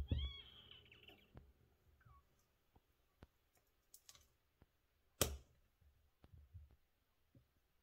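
Wooden wire soap cutter cutting a cured cold-process soap loaf: soft taps and clicks as the loaf is slid against the stop and the hinged wire arm is brought down through it, with a thump at the start and a sharp knock about five seconds in.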